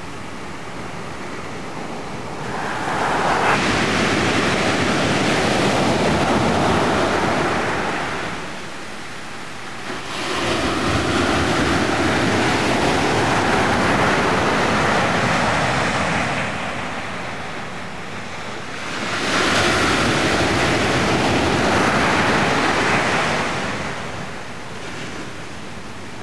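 Ocean surf breaking and washing up a sand beach: three long swells of rushing water, each lasting several seconds, with quieter lulls between.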